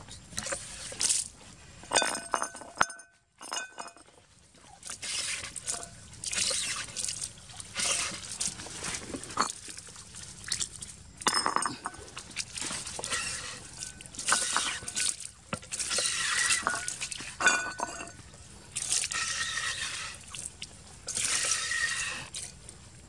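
A hand water pump being worked in strokes, water gushing out in spurts about every second and a half and splashing onto wet ground. There are a few metallic clinks about two to three seconds in.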